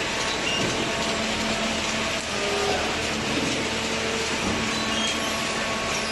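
Industrial cardboard shredder line running steadily: a dense mechanical noise with a faint steady hum underneath.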